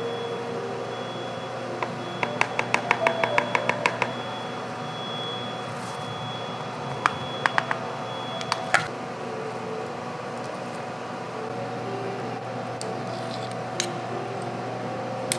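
A metal spoon clicks and taps against a clear plastic tub while food is scooped out. A quick run of about a dozen taps comes about two seconds in, a few more come around seven to nine seconds, and single clicks come near the end, over a steady hum.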